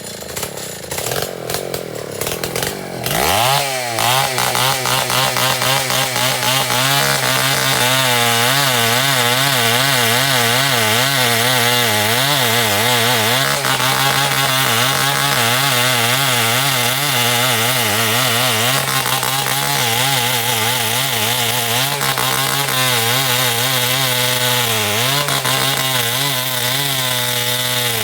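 Two-stroke chainsaw speeding up sharply about three seconds in, then running at high revs with its pitch wavering as the chain cuts through timber, dipping briefly near the end.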